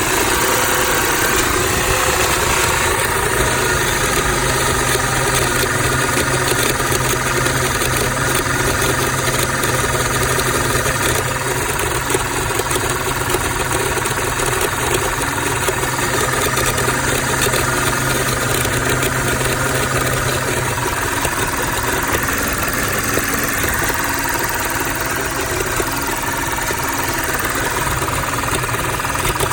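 2006 Audi A6 engine idling rough, the fault the owner suspects may be a PCV valve. A low hum in the idle note drops away about two-thirds of the way through.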